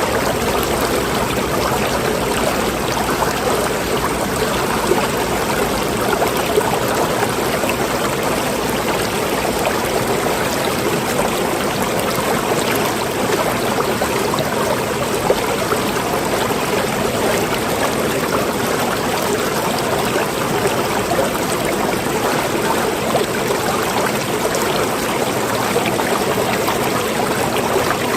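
Flowing water, a steady stream or small fall of water running without a break.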